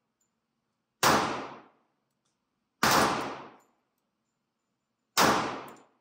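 Three shots from a Colt Defender .45 ACP compact 1911 pistol, about two seconds apart, each a sharp report with a short echoing tail in an indoor range.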